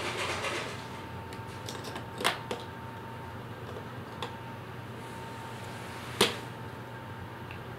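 Large plastic toy bricks clicking and knocking together as they are pulled apart and handled: a handful of sharp clicks, the loudest about two seconds in and again about six seconds in.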